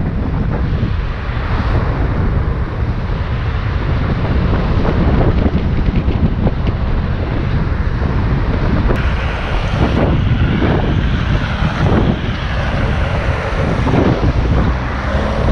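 Loud, steady wind noise buffeting the microphone while riding a Onewheel XR electric board, with a heavy low rumble.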